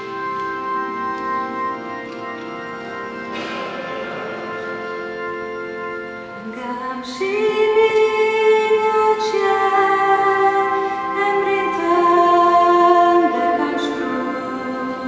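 A group of voices singing a slow hymn in long held notes, growing louder about six or seven seconds in.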